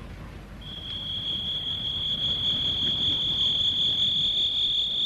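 Sonic screwdriver sound effect: a steady, high-pitched electronic whine that starts about half a second in and holds one pitch, working loose a stuck metal cap.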